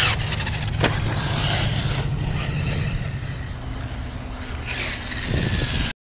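Arrma Kraton 6S RC monster truck driving over dirt jumps: its brushless motor and drivetrain revving and whining, with a sharp thump a little under a second in as it lands. The sound cuts off abruptly near the end.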